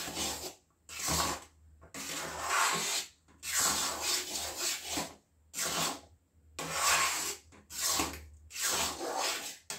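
Metal spatula scraping and stirring through a thick mash of boiled amla and melted jaggery in a kadhai. There are repeated rasping strokes, about one a second, as the spices are mixed in.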